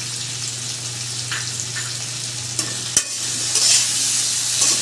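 Steamed taro (kochu) pieces sizzling as they fry in hot oil in a kadai, stirred with a spatula that knocks and scrapes against the pan a few times; the sizzle grows louder in the second half, over a steady low hum.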